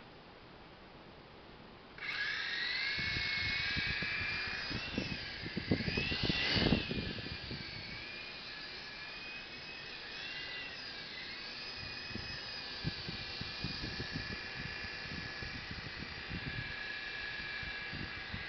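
Blade mCX2 micro coaxial RC helicopter starting up about two seconds in and flying: a high whine from its small electric motors and gears that wavers up and down in pitch with the throttle. Gusty rushes, loudest a few seconds after start-up, come from the rotor wash while it is close.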